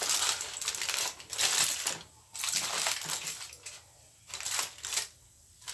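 Aluminium foil crinkling and rustling as hands open out and handle a foil parcel, in several spells with short pauses between, the longest at the start.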